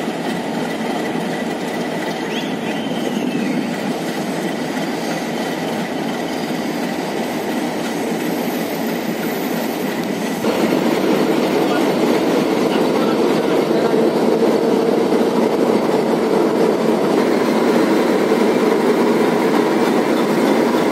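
Steady running noise of a train on the rails, a continuous rumble and rattle, which steps up suddenly in loudness about halfway through.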